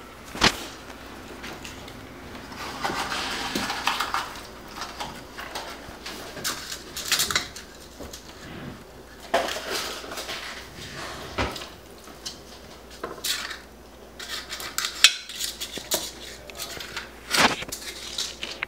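Metal ice-cream scoop clinking and scraping against a stainless steel mixing bowl and a metal muffin tin as thick muffin batter is scooped into paper cups. Irregular sharp clinks and knocks, with a longer scraping stretch about three seconds in.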